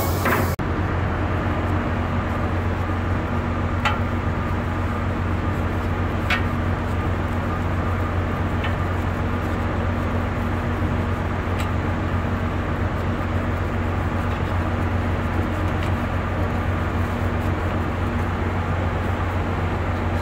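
Steady low drone of a ship's running machinery, a deep hum with a fainter steady tone above it, broken only by a few faint clicks.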